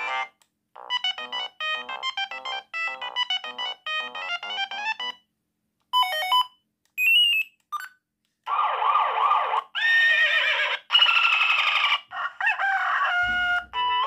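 Siemens A55 mobile phone playing one ringtone preview after another through its small speaker. Each stops short as the next is chosen: first a beeping tune, then three brief snatches, then warbling, siren-like sliding tones in the second half.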